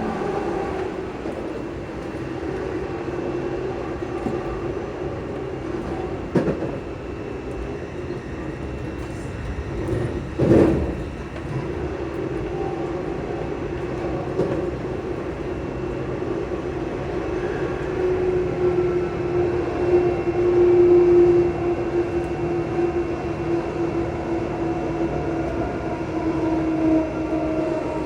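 Traction motors of a ScotRail Class 334 Juniper electric multiple unit humming steadily, heard from inside the carriage over the rumble of the wheels on the rails. A loud knock comes about ten seconds in, and the hum drops slightly in pitch near the end.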